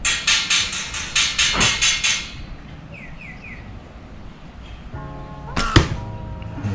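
Rubber-band slingshot fired: one sharp snap about three-quarters of the way through as the bands release a steel fishing dart made from a rotary-drill bit. Before it comes a quick rhythmic run of about nine clicks in the first two seconds, and a bird chirps three times.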